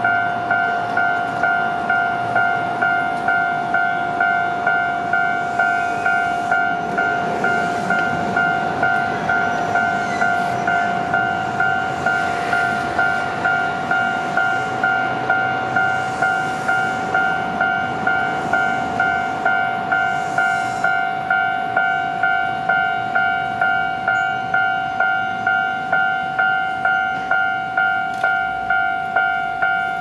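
Japanese railway level-crossing alarm ringing, a single-pitched electronic ding repeating steadily, about one and a half strikes a second, warning that a train is approaching.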